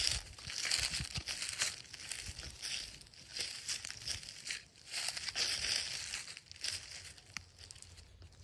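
Dry fallen leaves and grass crunching and rustling underfoot in irregular crinkly bursts.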